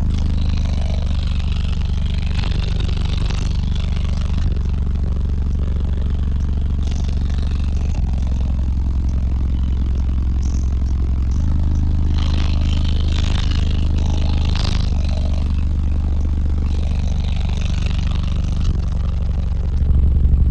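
Six Sundown ZV5 15-inch subwoofers in a car playing steady, very deep bass at high volume, with the car's body and trim rattling and buzzing along with it.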